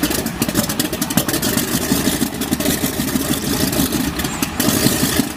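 Vintage biplane's radial piston engine running on the ground, its propeller turning, with a rapid, uneven stream of firing pulses at a steady level.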